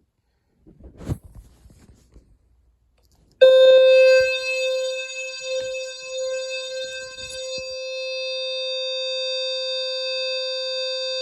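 A knock about a second in, then a System Sensor L-Series low-frequency fire alarm sounder switches on abruptly a little over three seconds in and sounds one steady, continuous low buzzing tone with a rich stack of overtones.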